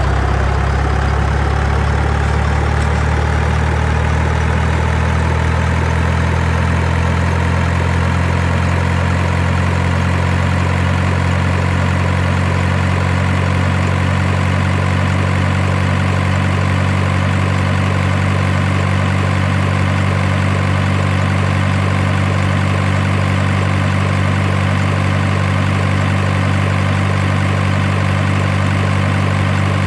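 A large vehicle engine idling with a low, steady drone. A whine above it rises in pitch over the first few seconds, then holds steady. It is an engine sound laid over the pictures, since the toy truck on screen is pulled on a string and has no motor.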